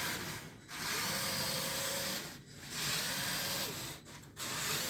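Four Lego Power Functions L motors and their gear train whirring as the Lego Technic carrier drives in its fastest mode, with brief dips about half a second, two and a half and four seconds in.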